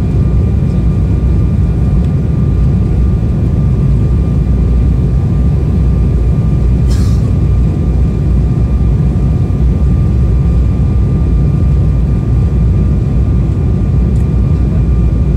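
Embraer 190 airliner's steady cabin drone of its General Electric CF34 turbofans and rushing airflow, heard inside the cabin during descent on approach. A faint steady whine sits over the rumble.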